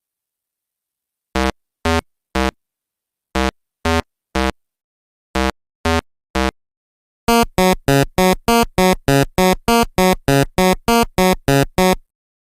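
Electronic synthesizer beeps with a buzzy tone: three groups of three short beeps, then a fast run of about four beeps a second.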